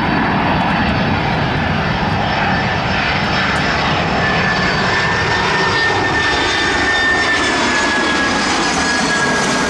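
Jet engines of a FedEx twin-engine freighter on final approach with its landing gear down: a loud, steady jet rumble with a thin high whine that drops slightly in pitch in the second half.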